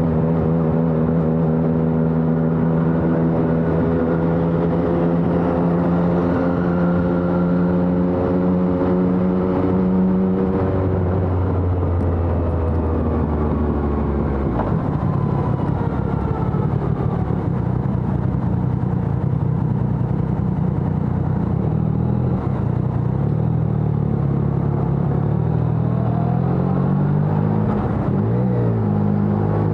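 Yamaha XSR 900's inline-three engine through a LeoVince Evo One full exhaust system, running under way at steady revs. About a third of the way in the pitch falls and then holds lower. It climbs again near the end with a brief dip.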